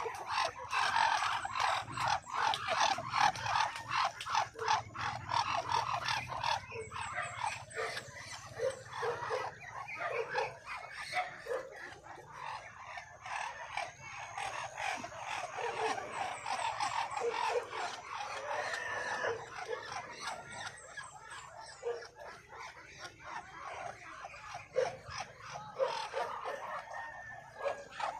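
Muscovy ducks making short low calls over a dense, continuous run of quick clicks.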